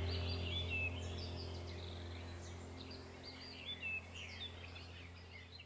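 Small birds chirping and twittering in quick, overlapping calls over a low steady hum, all fading out gradually.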